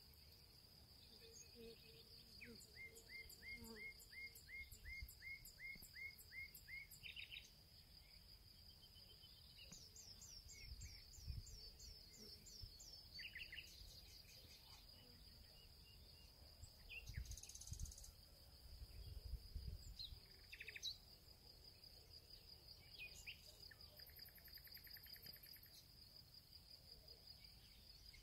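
Faint woodland ambience: a steady high insect trill with birds calling over it. There is a run of evenly repeated chirps in the first few seconds, a quick series of falling notes about ten seconds in, and scattered calls later. A few low thumps come around the middle.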